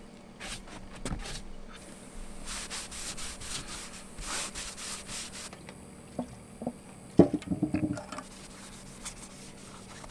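Brushing and rubbing strokes on the camper's roof around the air-conditioner opening as the old seal area is cleaned, followed by a few sharp knocks and a short clatter about seven seconds in.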